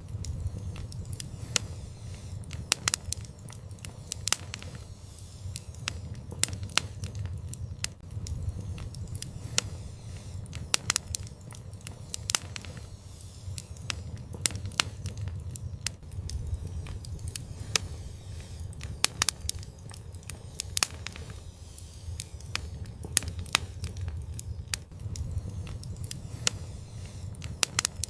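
Wood fire burning in an outdoor fireplace: a steady low rumble of flame with sharp, irregular crackles and pops throughout.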